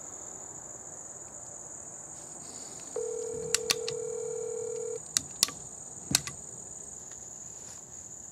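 Telephone ringback tone from a smartphone's speaker: one two-second ring of the calling tone while the call goes unanswered. A steady high chirring of insects runs underneath, and a few sharp clicks come during and just after the ring.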